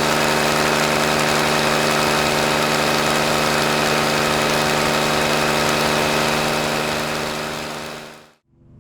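Helicopter running steadily, a dense, unchanging engine and rotor noise with several steady tones. It fades out near the end, and a new, quieter sound begins just after.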